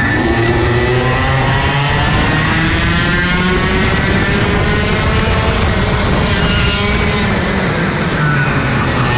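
IAME KA100 two-stroke kart engines racing in a tight pack: the onboard engine's note rises and falls as it accelerates and lifts through the corners, with the engines of the karts just ahead heard at other pitches alongside it.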